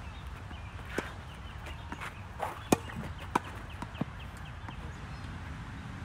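Tennis balls struck by rackets and bouncing on a hard court during a doubles rally: a string of sharp, short pops spaced roughly a second apart, the loudest near the middle.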